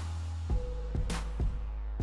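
Background electronic music with a steady beat: deep bass and repeated kick drum, with one sharp hit about a second in.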